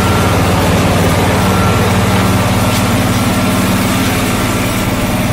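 John Deere 445 garden tractor engine running at a steady speed.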